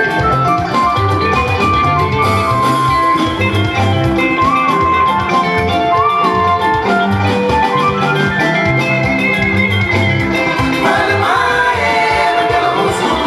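Dance music with a steady beat, with a woman singing over it into a microphone.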